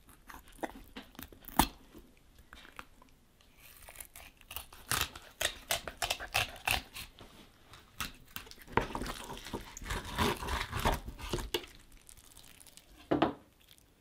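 Knife filleting a northern pike on a plastic cutting board: short, irregular crunching and slicing strokes in clusters as the blade works through the fish, with a sharper knock near the end.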